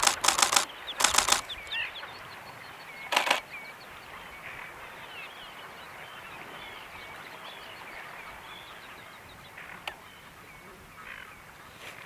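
Camera shutters firing in rapid bursts, three times in the first few seconds. After that, faint chirping of wetland birds over a steady outdoor hiss.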